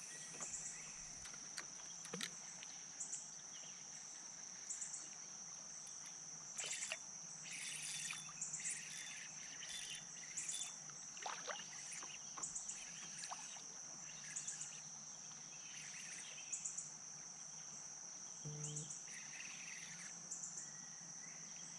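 Steady high-pitched drone of insects such as crickets, with short chirps breaking in every second or two.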